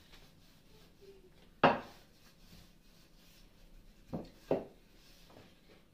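Wooden rolling pin knocking against a stone countertop while dough is rolled out: one sharp knock about two seconds in, then two quicker knocks close together about four seconds in.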